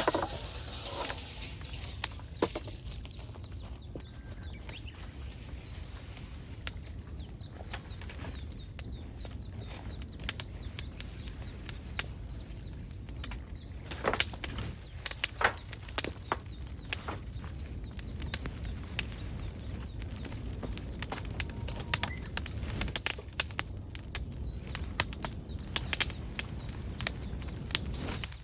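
Outdoor sounds: a steady low rumble with scattered sharp clicks and cracks, a few louder cracks about halfway through.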